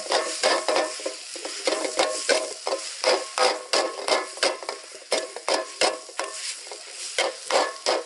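A large steel ladle scraping and tossing shredded vegetables around a steel wok, knocking against the pan about three times a second, over the steady sizzle of stir-frying.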